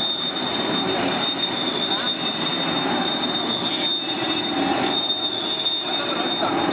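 100-litre vacuum emulsifying homogenizing mixer running, a steady mechanical noise with a constant high-pitched whine.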